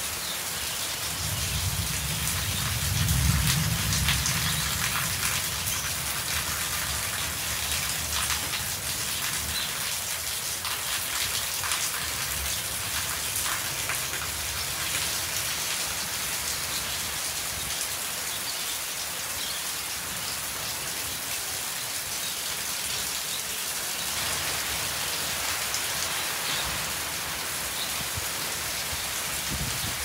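Steady rain falling on a wet yard and its tin roofs, with many separate drops heard through the hiss. A low rumble swells and fades in the first few seconds, loudest about three seconds in.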